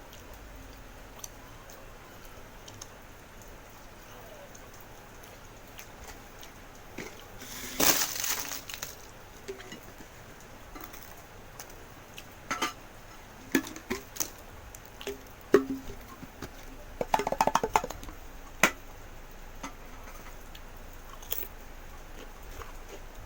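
Close-miked eating sounds: scattered crunches and clicks of someone eating pizza and crisps. There is a louder rustling burst about eight seconds in and a quick run of crunches around seventeen seconds.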